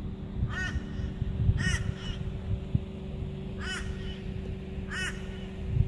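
A crow cawing, about four short, harsh caws spaced a second or more apart, over a steady low hum.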